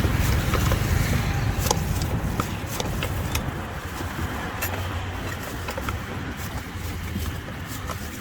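Street traffic running past, a low rumble that eases after about three seconds, with scattered light clicks and knocks.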